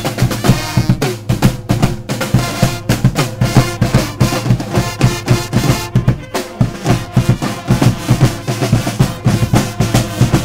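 Marching-band drum section playing a fast cadence on snare drums and bass drum, with rapid strokes and rolls. The brass cuts out right at the start, leaving mainly the drums.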